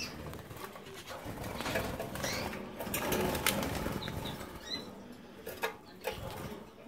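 Caged colour canaries fluttering and hopping about, with sharp clicks of feet and wings on perches and bars and a couple of brief high chirps.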